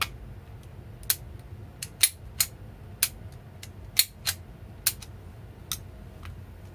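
A series of about ten sharp, small metallic clicks at uneven intervals, from parts of an Umarex Walther PPK/S air pistol being handled and fitted.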